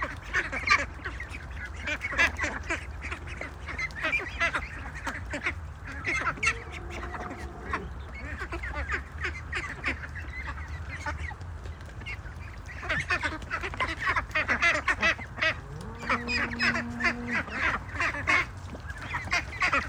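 A flock of domestic ducks quacking and chattering, many short calls overlapping. Two longer, steady-pitched calls stand out, one about seven seconds in and one about sixteen seconds in.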